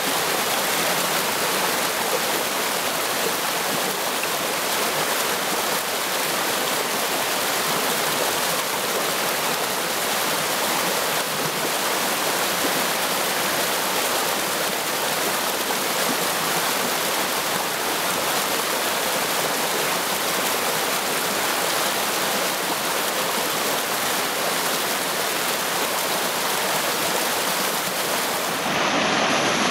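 A small waterfall and stream cascading over rocks, a steady rush of water; near the end it shifts and grows a little louder.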